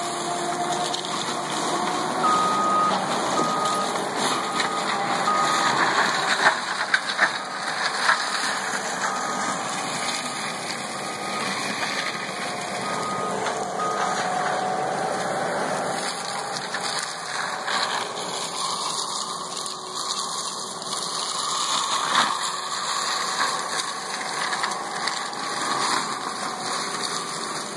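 Case TV380 compact track loader running a forestry mulcher head, its engine under load and the rotor shredding buckthorn brush with a steady dense rush and a few sharp cracks. The machine's backup alarm beeps repeatedly from about two seconds in until about halfway through.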